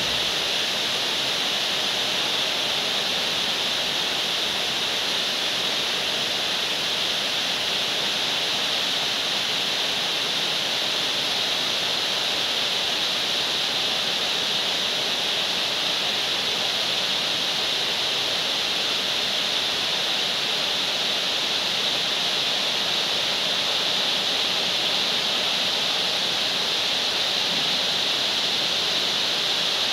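Heavy rain falling steadily, an even hiss that holds at the same level throughout.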